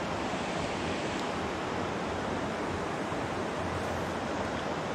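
Steady rushing of a shallow river flowing over a rocky bed, an even wash of water noise with no break.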